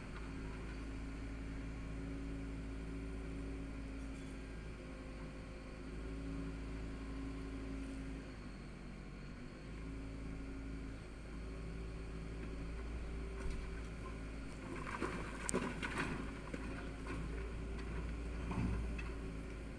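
Demolition excavator's engine running steadily. In the last five seconds comes a series of crashes and clattering as brickwork and rubble fall from the building being pulled down.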